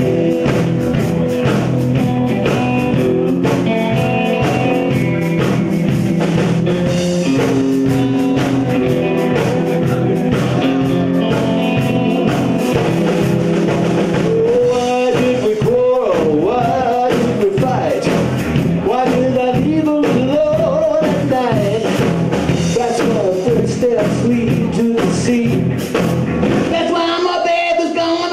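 Live three-piece rock-and-roll band, with electric guitar, electric bass and drums, playing an instrumental passage. About halfway in, an electric guitar lead with bending notes comes forward. Near the end the bass and drums drop out for a moment before coming back in.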